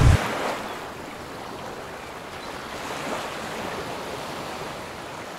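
A loud low rumble cuts off right at the start, leaving a steady, soft rushing noise.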